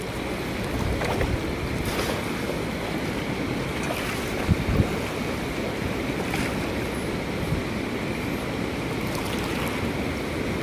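Fast-flowing river rushing steadily over a gravel bed, with two brief low thumps near the middle.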